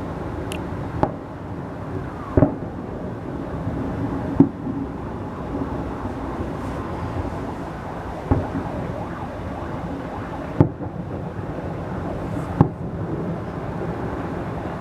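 Festive fireworks salute going off: six booming bursts at uneven intervals of about two to four seconds, over a steady background hum of outdoor noise.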